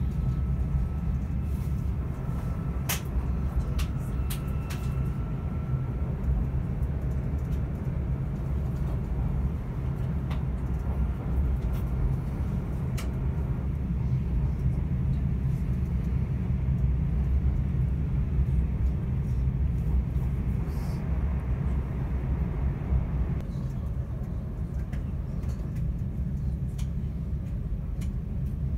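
Passenger train in motion, heard from inside the carriage: a steady low rumble of the wheels on the track and the running noise of the train, with a few short clicks and knocks.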